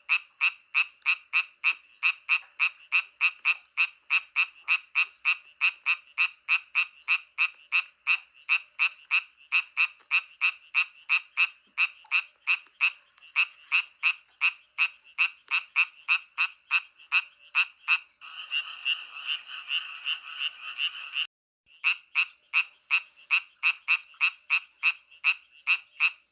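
Frogs croaking in a steady rhythm of about three calls a second. Some two-thirds of the way through, the calls blur into a denser chorus, break off for a moment, then the regular croaking resumes.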